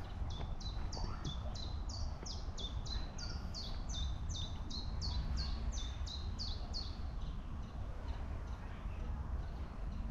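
A woodland bird calling a quick series of about twenty high notes, each falling in pitch, roughly three a second, stopping about seven seconds in. A steady low rumble of wind or handling noise lies beneath.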